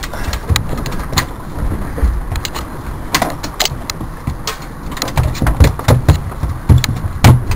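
A freshly landed striped bass flopping on a fiberglass boat deck: irregular slaps and knocks, the loudest a little after seven seconds in, over a low steady rumble.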